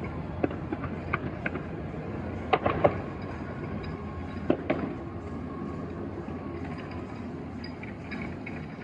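Distant fireworks: a steady low rumble with scattered sharp pops and cracks, a cluster of them about two and a half seconds in and two more around four and a half seconds.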